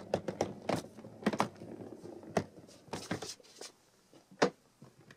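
Irregular clicks and knocks of someone handling gear around a hard equipment case, the loudest a single sharp knock near the end.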